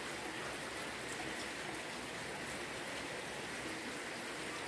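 Heavy rain falling steadily on a wet concrete yard: an even, unbroken hiss of drops.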